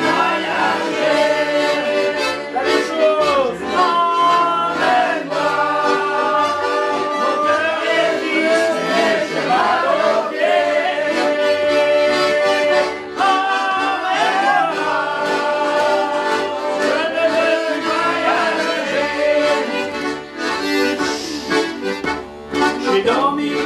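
Accordion playing an instrumental passage of a folk song, with held notes and a moving melody.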